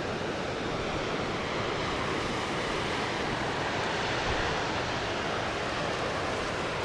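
Steady rushing wind, with gusts buffeting the microphone in a restless low rumble.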